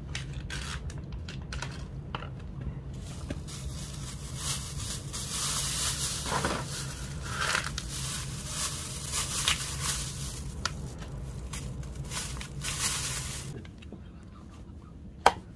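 A cat eating up close: irregular crunching and chewing, thickest through the middle, over a low steady hum that stops near the end. A single sharp click follows.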